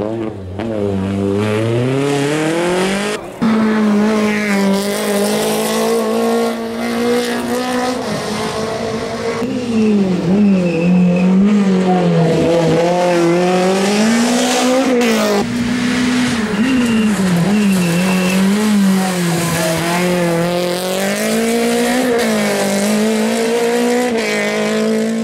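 Rally car engine revving hard on a stage, its pitch climbing and dropping again and again through gear changes and lifts for corners. The sound breaks off briefly about three seconds in.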